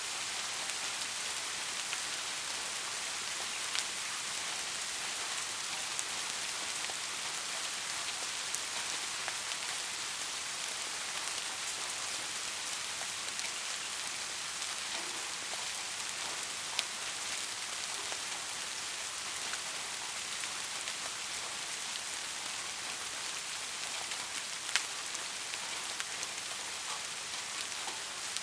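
Steady rain falling, an even hiss with scattered sharp drops striking close by, a few louder ones standing out.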